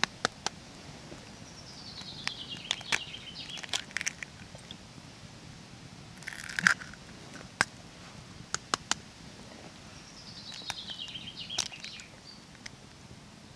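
Eggshells cracking and crunching as two eggs are broken by hand into an iron frying pan: scattered sharp cracks, with the loudest crunch about halfway through. A bird sings a descending trill twice in the background.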